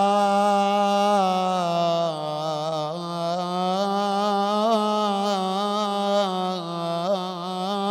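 A man's solo unaccompanied voice holding one long wailing sung note in an Iraqi mourning lament, with small quavering turns in pitch, especially near the end.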